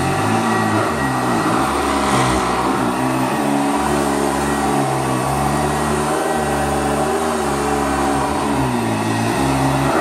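1976 Eureka WideTrack upright vacuum cleaner running on high speed while pushed back and forth over carpet. Its motor hum wavers up and down in pitch again and again through the strokes.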